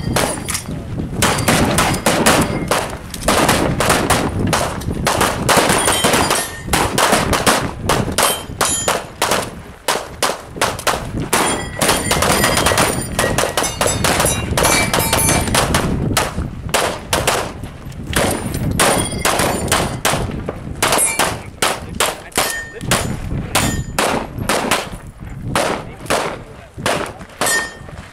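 Rapid pistol gunfire, many shots in quick strings overlapping so they come several a second, with steel targets ringing when hit.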